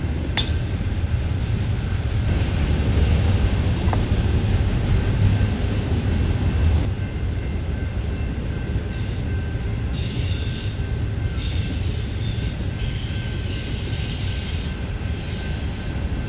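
Steady low rumble with hiss, easing about seven seconds in, and one sharp click about half a second in.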